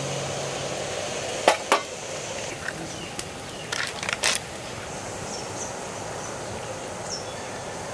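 A few sharp clicks and taps as a ghee jar is opened and its lid and seal handled, with a metal spoon knocking against the jar, over a steady background hiss. A few faint high chirps near the end.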